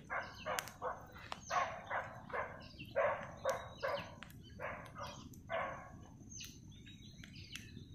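A deer giving a series of short alarm barks, about two a second, that stop about six seconds in; the camper takes the calls for a sign that something is chasing it. Birds chirp faintly.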